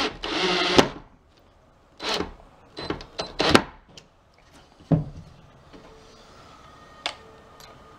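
Knocks, clicks and clatter of hand work on a wooden pool-table frame, opening with a short burst of noise lasting under a second, then scattered knocks, with a heavier thump about five seconds in.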